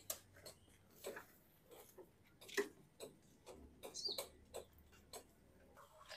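Irregular short clicks and rubbing scuffs of a soapy rag being scrubbed and wiped over a street food cart's panels.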